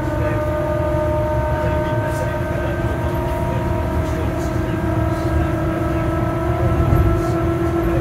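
Electric bus traction motor whining, heard from inside the passenger cabin: several steady high tones over the low rumble of the moving bus.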